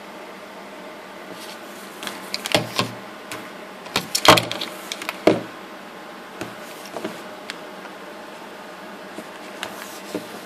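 Plastic switching power adapter and its DC cable handled by hand: a cluster of clicks and knocks about two to five seconds in, then a few lighter ticks, over a steady hiss.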